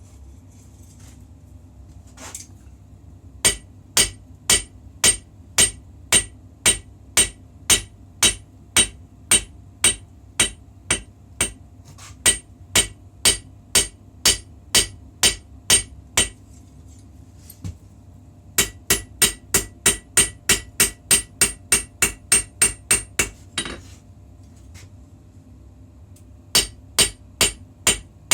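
Hammer blows ringing on steel against an anvil while forging a puukko blade. A run of about three blows a second, a pause, a quicker run of about five a second, another pause, then blows again near the end, over a low steady hum.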